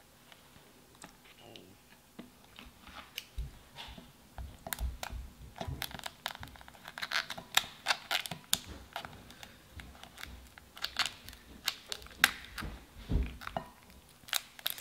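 Kitchen scissors snipping through a boiled shellfish shell, a dense run of sharp, irregular clicks and cracks that starts a couple of seconds in, with shell crackling under the fingers.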